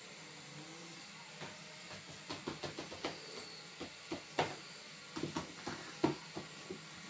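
A cat's paws thumping and tapping on the floor in quick, irregular runs as it chases a laser pointer's dot, starting about a second and a half in, over a faint steady hiss.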